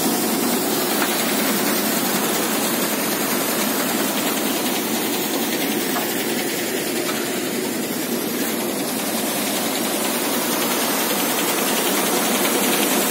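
Paddy cleaner (threshing machine) running steadily under load as paddy straw is fed up its slatted conveyor, giving an even, loud mechanical noise.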